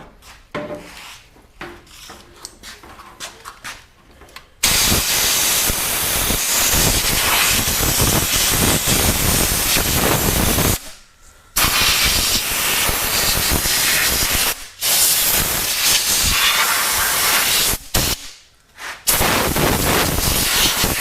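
Compressed air hissing from an air blow gun in several long blasts with short breaks, starting about four seconds in, blowing dirt off air-cleaner parts. Light clicks of parts being handled come before it.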